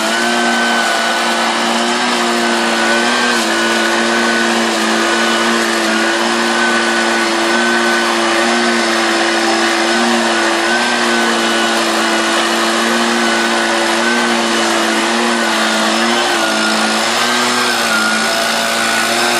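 Handheld petrol leaf blower-vacuum running steadily in vacuum mode, sucking stinging insects from a nest under the eave into its collection bag. Its pitch dips slightly a few times.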